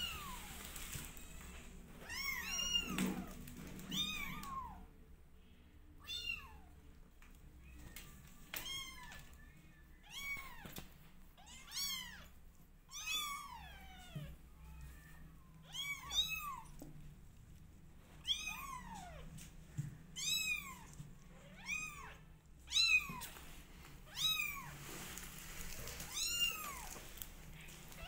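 Kittens about 20 days old meowing over and over: short, high-pitched calls that rise and fall, about one a second, sometimes two close together.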